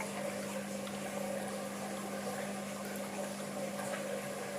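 Aquarium pump by a koi treatment tank humming steadily, with a low mains-type drone over a faint wash of moving water.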